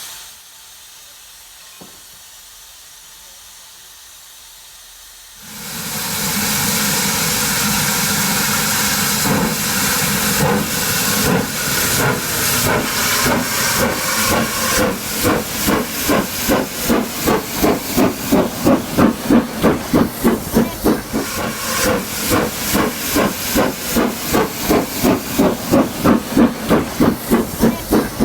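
Sound-fitted model steam locomotive playing through its speaker. A steady hiss of steam starts about five seconds in, then exhaust chuffs begin and gradually quicken as it pulls away, reaching about three beats a second.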